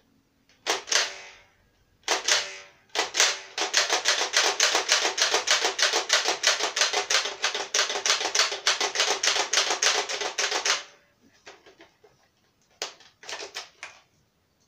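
Motorized toy foam-dart blaster firing on full auto: after two short bursts, a fast, even run of clicks, about five a second, lasting some eight seconds, then a few loose clicks as the magazine is handled near the end.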